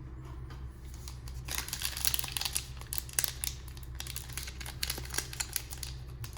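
Foil wrapper of a trading-card pack crinkling and tearing as it is worked open, a dense run of small crackles starting about a second and a half in, over a low steady hum.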